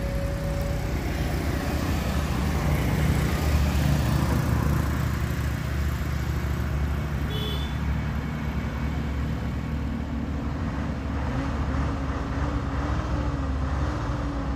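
Diesel engine of a loaded Mitsubishi Fuso intercooler dump truck running steadily under load in low gear on a steep climb, a low rumble whose revs rise slowly in the second half. Other traffic is mixed in, with a brief high double beep about halfway through.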